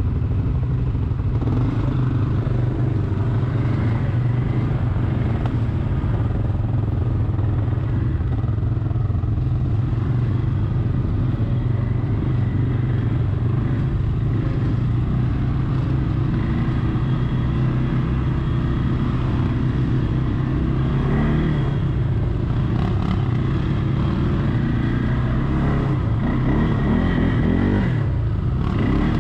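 Quad bike (ATV) engines running close by, a steady engine hum. Some rising revs come near the end.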